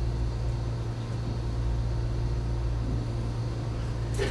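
Steady low hum of room noise with no speech, and one brief sharp sound near the end.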